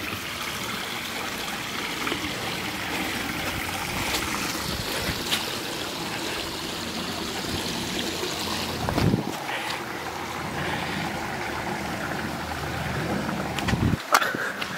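Small woodland creek trickling and running over rocks, a steady rush of water, with a couple of low bumps about nine seconds in and near the end.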